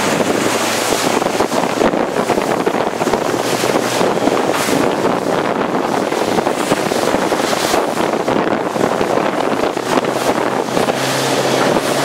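Strong wind buffeting the microphone over rushing water and breaking waves, with a faint, steady low hum beneath.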